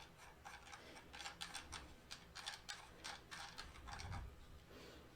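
Faint, irregular small clicks and taps of table-lamp stand parts being handled as a section is unscrewed.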